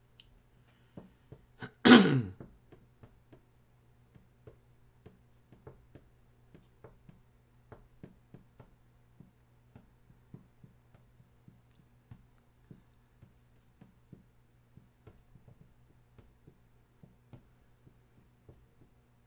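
A man's short voiced sound, falling in pitch, about two seconds in, then faint, irregular light clicks about two a second over a low electrical hum.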